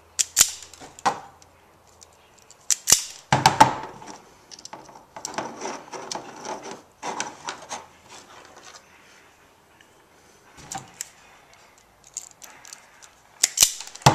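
Self-adjusting wire stripper snapping shut on thin yellow jumper wire, with sharp clicks about half a second in, near three seconds and near the end. Between them come small clicks and rustling as the wire and plastic lamp sockets are handled.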